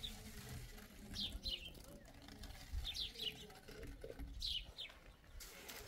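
Small birds chirping: short, quick, falling chirps, often in twos or threes, every second or two, over a low rumble.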